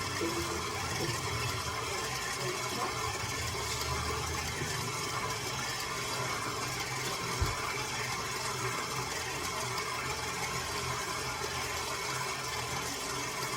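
Electric mixer running steadily at speed, beating cookie dough that has turned creamy, with a low motor hum and a whirring rattle.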